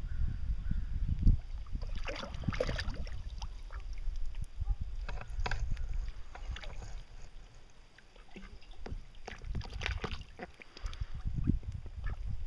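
Mallards dabbling and splashing in a small pool of water as they dip their bills after goldfish: clusters of small splashes and drips about two seconds in, around five to six seconds and near ten seconds, over a low rumble.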